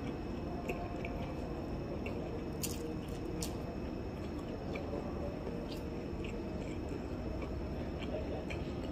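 A person chewing a mouthful of boiled sweet corn, with soft wet mouth clicks every second or so over a steady background hum.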